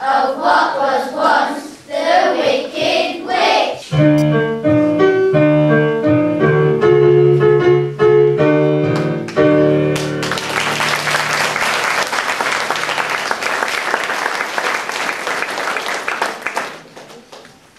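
Children singing the end of a song with piano accompaniment. The piano plays closing chords from about four seconds in. Audience applause breaks out about ten seconds in and dies away near the end.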